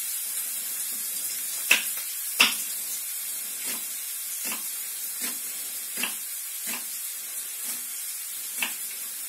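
Garlic frying in olive oil in a pan, a steady high sizzle, with a knife cutting an onion on a wooden board in sharp taps about every three-quarters of a second.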